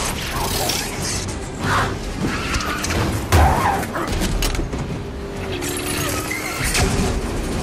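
Action-film soundtrack mix: a music score over vehicle engine and tyre noise, with sharp impacts, the loudest a little over three seconds in.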